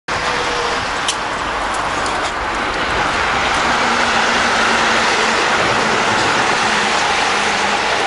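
Keihan Main Line train running along the elevated track: a steady wash of train noise that grows slightly louder from about three seconds in, with a few light clicks in the first few seconds.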